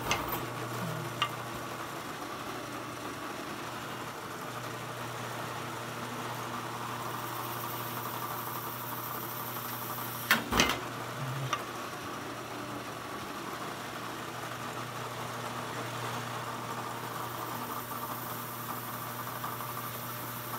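Drill press motor running steadily while its bit drills a pilot hole through a cymbal, with a couple of light clicks near the start and a sharp knock about halfway through.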